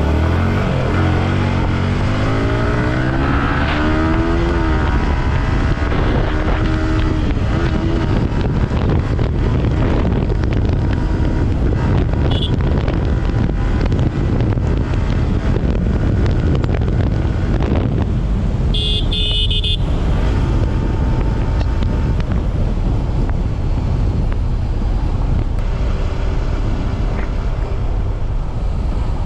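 Yamaha R15 V4's 155 cc single-cylinder engine on the move, revving up with rising pitch through the first several seconds as the bike accelerates, then running at road speed under heavy wind rush on the microphone. About two-thirds through, a brief high-pitched tone sounds for about a second.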